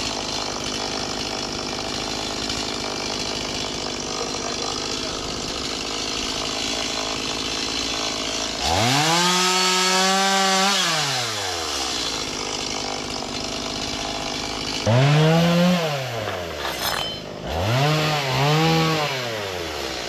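Two-stroke chainsaw running at idle, then revved up as it cuts through fallen breadfruit branches. There is one long rev held for about two seconds some nine seconds in, and three shorter revs near the end, each falling back to idle.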